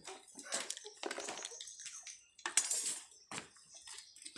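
Metal skewers clicking and scraping as pieces of grilled meat are pushed off them into a plastic bowl, in an irregular run of short knocks and rustles.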